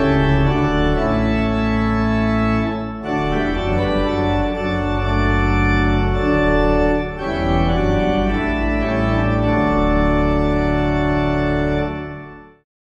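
Organ playing slow, held chords that change every few seconds, fading out near the end.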